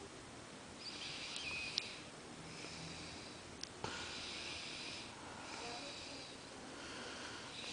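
Snoring in sleep: a steady run of hissy, wheezy breaths, about one every second and a half. Two or three small sharp ticks come between the breaths.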